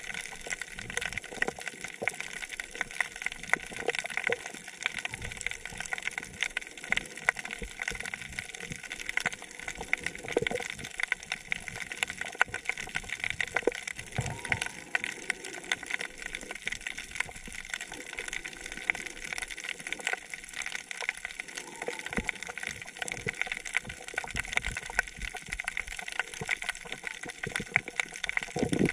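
Underwater sound on a coral reef: a dense, steady crackle of tiny clicks over a hiss of water, the crackle typical of snapping shrimp. A few low thumps, about ten and fourteen seconds in.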